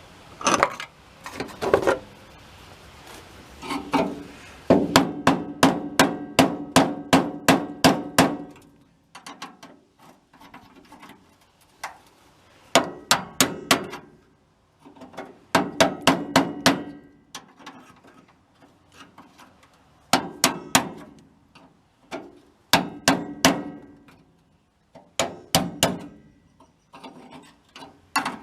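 Hammer blows in bursts: a run of about a dozen quick strikes, then shorter groups of a few strikes each, knocking out a rusted-on VW bus lower door hinge.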